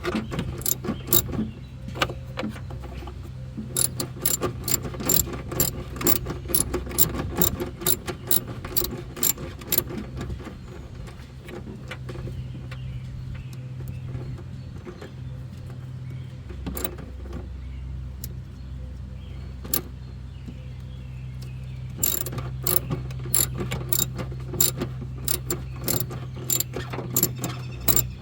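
Runs of sharp, quick clicks from hand tools working fasteners in a truck's engine bay, with a quieter stretch in the middle, over a steady low hum.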